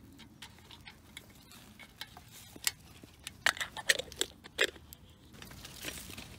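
Metal camp coffee percolator being put together: a quick run of sharp metal clinks and taps as the coffee basket and the lid with its glass knob are fitted on. The clinks are loudest between about three and a half and five seconds in.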